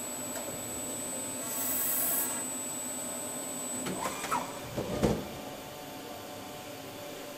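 Crankshaft milling machine running with a steady high whine and hum and a brief hiss. About four seconds in, the whine dies away as the spinning crankshaft comes to a stop, with a few clunks and a sharp knock, and a lower steady hum is left.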